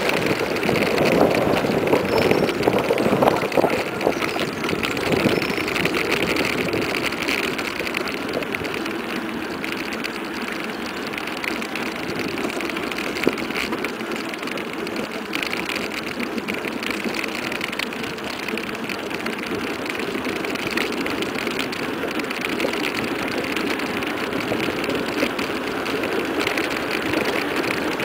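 Mountain bike coasting fast downhill on asphalt: a steady rush of tyres on the road and air past the microphone, with a fine rattle from the bike.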